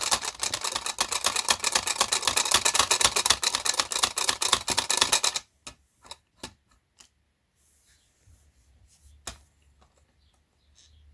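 Rapid, even clicking, about ten clicks a second, that stops suddenly after about five seconds, followed by a few separate light clicks and a single tap.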